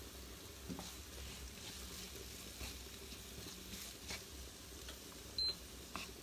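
Sliced artichokes and garlic frying gently in olive oil over low heat: a faint sizzle with scattered small crackles. A short high-pitched beep comes about five seconds in.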